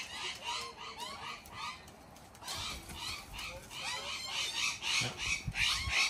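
A flock of wild cockatoos calling: many short calls repeated in quick succession, one run in the first two seconds and a denser run from about two and a half seconds on.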